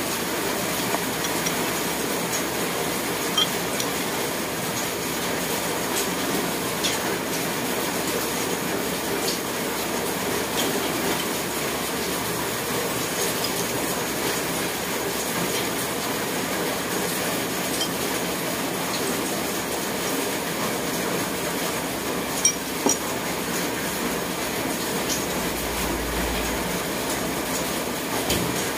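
A steady, even rushing noise throughout, with a few light clinks of a spoon against a small ceramic sauce bowl, two of them close together near the end.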